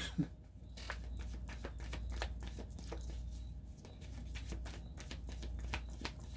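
Tarot cards being shuffled and handled: a run of light, irregular clicks and flicks over a low steady hum.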